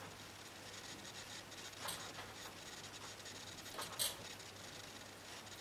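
Felt-tip marker strokes on drawing paper pinned to an easel: faint scratchy rubbing of the tip, with two brief louder strokes about two and four seconds in.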